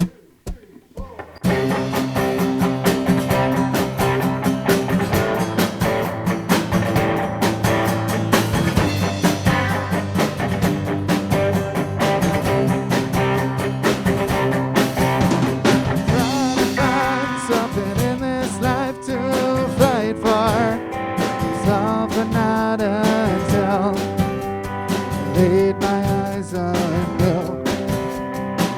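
Live band playing the instrumental intro of a song, with guitar and drum kit, kicking in about a second and a half in after a few sharp clicks. A wavering lead melody enters about sixteen seconds in.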